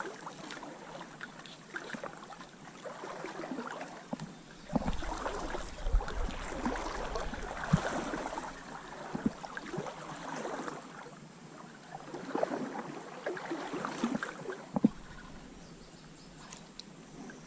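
Stream water splashing and sloshing irregularly around a wading angler's legs. A low rumble joins in from about five seconds in until about fifteen seconds in.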